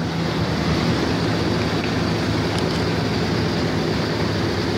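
Pickup truck engine idling steadily, heard close to the open engine bay, with a constant low hum.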